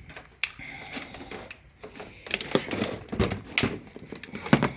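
Handling noises as a trickle charger and its cord are picked up and sorted out: rustling with a run of sharp plastic clicks and knocks that get busier after about two seconds, the loudest knock near the end.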